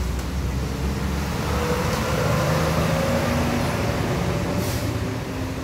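Motor vehicle going past on the road: a low engine rumble with a steady hum that rises slightly in pitch, over a continuous noisy hiss.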